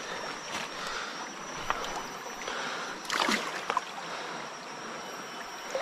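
Fast-flowing muddy river rushing past the bank in a steady wash, with a few short knocks through it, the loudest about three seconds in.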